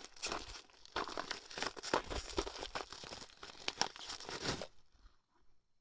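Packaging crinkling and rustling with tearing as a package is opened by hand, stopping a little before the end.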